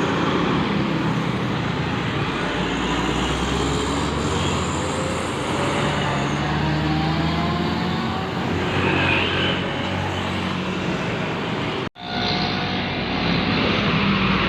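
Loud, steady road traffic: vehicle engines and tyre noise from passing cars and buses, with faint rising and falling engine pitch. The sound drops out for an instant near the end and comes straight back.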